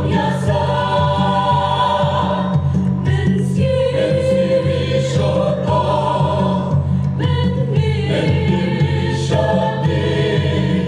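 A mixed choir of women and men singing together.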